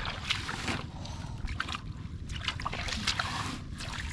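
Shallow muddy water sloshing and splashing as hands work through it, with scattered short splashes and knocks.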